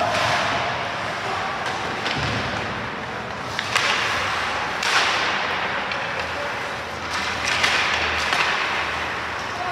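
Ice hockey play: skate blades scraping and carving on the ice in swelling hisses, with a few sharp knocks of stick and puck spread through.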